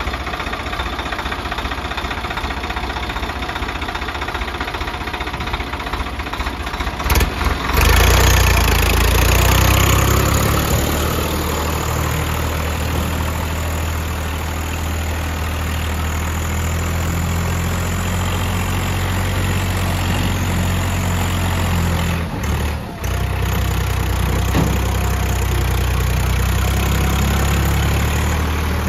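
Swaraj 744 XT tractor's three-cylinder diesel engine running at a steady idle, then revving up sharply about a quarter of the way in and running hard under load as the four-wheel-drive tractor hauls its trailer out of deep mud. The engine sound dips briefly about three-quarters of the way through, then carries on.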